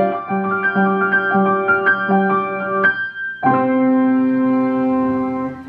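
Grand piano being played: a run of notes, a short break about three seconds in, then a final chord held and left to fade near the end.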